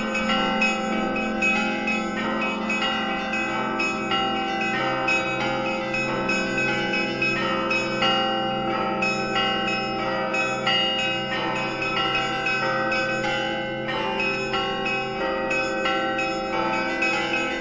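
Russian Orthodox church bells rung by hand in a continuous zvon: many bells of different pitches struck in a fast, unbroken pattern, their tones ringing on and overlapping, with a deep bell humming underneath.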